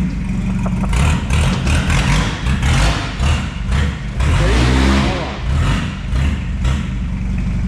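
A car engine running steadily nearby, with a string of short, louder bursts over it that sound like quick revs or knocks.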